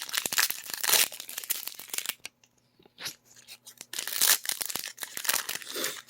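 Foil booster pack wrapper being torn open and crinkled by hand, in two spells of rustling with a short quiet gap between them.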